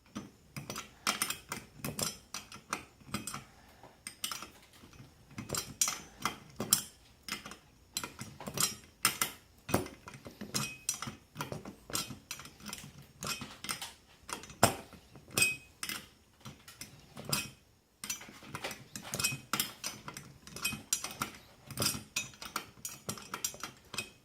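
Small metal tools and bolts clinking and rattling against each other in quick, irregular clicks, with a brief pause a little past halfway.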